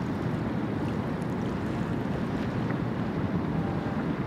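A steady low rumble with no distinct events: a large cruise ship passing close by on the water.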